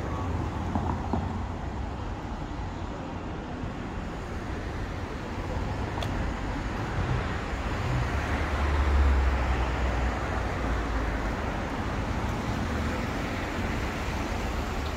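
City street traffic: cars running and passing, a steady mix of engine and tyre noise, with a louder low rumble as a vehicle goes by about eight seconds in.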